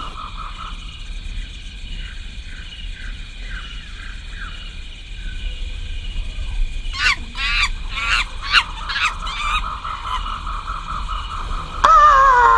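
Jungle ambience sound effect: a steady high insect-like drone, with a quick run of squawking, honking animal calls about seven seconds in and a loud falling animal screech near the end.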